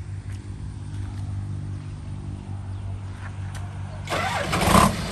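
Rice combine harvester's engine running steadily at idle, then opening up to a much louder, harder run about four seconds in.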